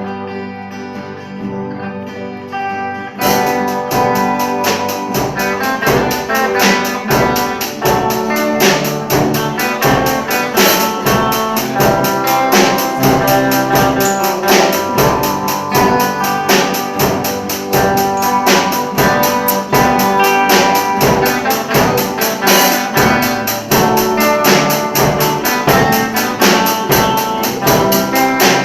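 Instrumental ensemble music built on multitracked guitar parts. It opens softly with sustained notes, then about three seconds in the full arrangement comes in with a steady beat.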